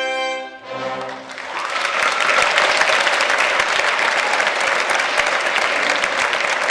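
The song's final held note with orchestra cuts off in the first second, a few low closing notes sound, then theatre audience applause swells from about a second and a half in and continues steadily.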